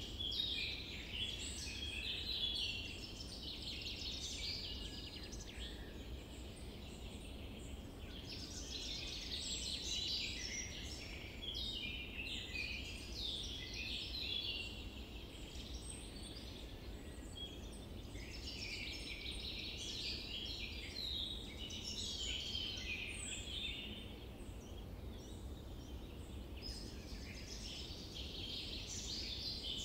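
A dense chorus of many small birds chirping and calling, swelling and thinning every few seconds, over a low steady rumble.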